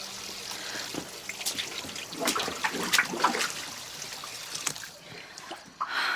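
Water running and trickling from a tap left on, flooding the room, with a cluster of sharp splashes about two to three seconds in.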